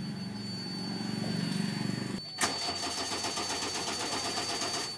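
JCB 3DX backhoe loader's diesel engine running, with a thin steady high-pitched tone over it. A single sharp knock about two and a half seconds in.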